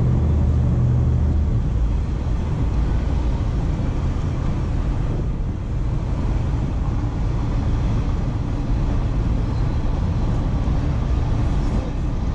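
A jet boat's twin 496-cubic-inch V8 engines running under way. There is a strong low engine note that eases off about a second and a half in, then a steady rumble with a rushing noise over it.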